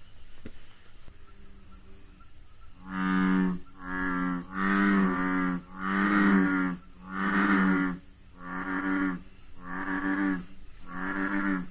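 An animal giving a run of eight low, snore-like calls, each under a second long and about a second apart, after a fainter call near the start. The first few calls are the loudest and the later ones somewhat softer.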